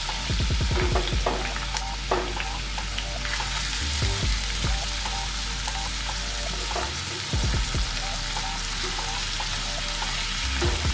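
Raw sliced onions sizzling in hot ghee in a stainless steel pan as they begin to fry down toward browning. The onions are stirred now and then, making short scraping clicks against the pan, several in the first second and a half and a few more later.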